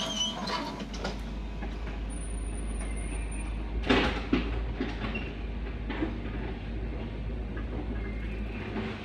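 Foton FR150-7 crawler excavator's diesel engine running with a steady low rumble, with occasional clanks and one sharp knock about four seconds in.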